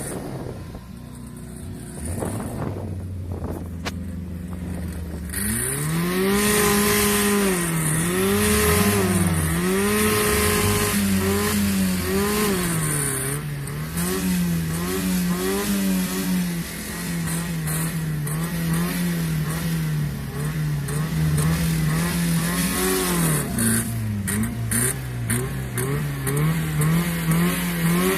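Fiat car engine idling low, then from about five seconds in revved hard over and over, its pitch rising and falling in quick blips. It is then held at high revs for several seconds, drops briefly and is revved up again near the end.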